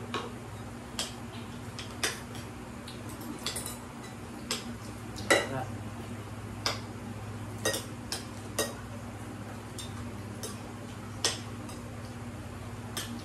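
Plates, bowls and a mug clinking and tapping on a table as people eat: about a dozen scattered light clicks, the loudest about five seconds in, over a steady low hum.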